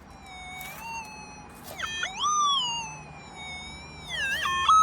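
Minelab SDC 2300 pulse-induction metal detector's audio tone, a whine that swoops down and back up in pitch twice as the coil passes over a buried target, loudest near the end. The operator judges the signal to sound like trash.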